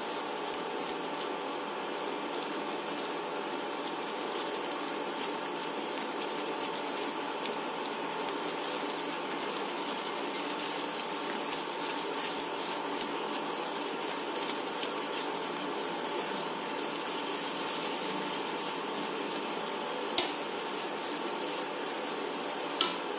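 Semolina and water being stirred with a silicone spatula in a pan on an induction cooktop, over a steady even hiss; a couple of light knocks near the end.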